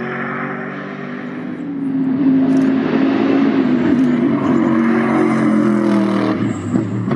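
Mercedes-AMG GT3 race car's naturally aspirated V8 running at speed on track, getting louder about two seconds in and holding a fairly steady pitch.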